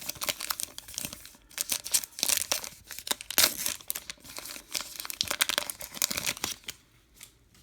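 Foil baseball card pack wrapper crinkling and tearing as it is ripped open, a dense run of crackles that dies away about seven seconds in.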